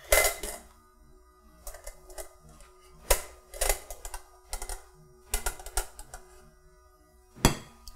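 Irregular light clicks and taps of a silicone spoon against the metal cups of an egg poacher as poached eggs are scooped out. The loudest knock comes near the end.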